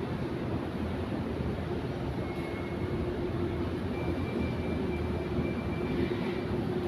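Airplane engines running steadily: a continuous hum with a faint high whine that joins about two seconds in.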